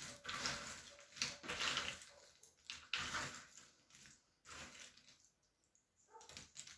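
Cardboard jigsaw puzzle pieces rustling and clicking against each other as they are stirred and sifted by hand, in irregular bursts. It goes nearly quiet about five seconds in.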